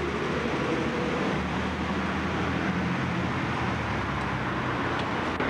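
Steady low engine hum of a motor vehicle mixed with road traffic noise.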